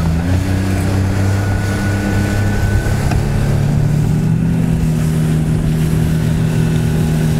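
Motorboat engine running steadily, its hum stepping up slightly in pitch twice, over a steady hiss of wind and water.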